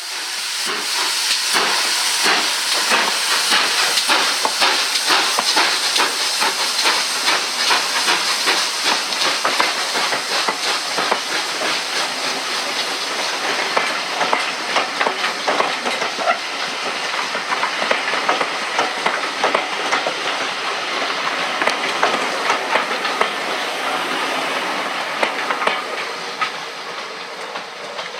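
Steam locomotive hissing loudly, with rapid irregular clicking and clattering running through it. The hiss starts abruptly and eases off near the end.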